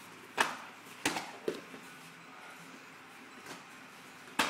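Strikes landing in kickboxing sparring: sharp smacks of gloved punches and kicks on gloves and guards, three within the first second and a half and one more near the end.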